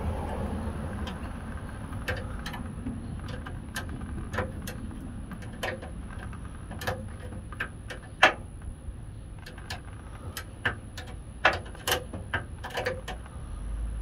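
Metal wrenches clicking and knocking against the fuel-filter line nuts as they are loosened: scattered sharp metallic clicks at uneven spacing over a steady low rumble.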